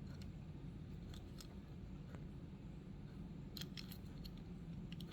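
Faint clicks and small taps of a die-cast toy car being handled in the fingers, a quick cluster about three and a half seconds in and again near the end, over a low steady hum.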